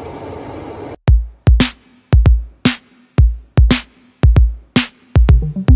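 An electric glass kettle heating water gives a steady rushing hiss for about the first second. The hiss is cut off abruptly by loud electronic background music with a drum-machine beat of sharp kick and snare hits.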